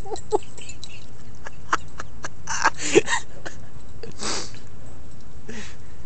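Chihuahua chewing a leaf bug: a few sharp crunching clicks with a tight cluster about halfway through, then two short sniffs near the end, over a steady background hiss.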